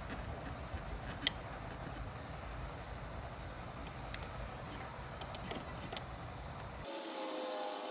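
A few small, sharp plastic clicks and wire handling as a blue tap splice is fitted and snapped shut on a red harness wire, the loudest click about a second in, over a low steady background rumble. About seven seconds in the background changes abruptly and the rumble stops.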